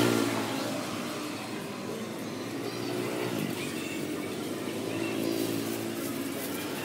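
Street traffic: engines of passing motorbikes and cars running steadily, their hum rising and falling in pitch as they go by.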